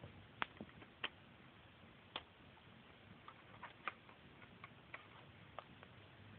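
Scattered small, sharp clicks and taps from a 1:24 scale diecast Bentley Continental Supersports model being handled as its bonnet and doors are opened, over near silence. The loudest clicks come about half a second and a second in.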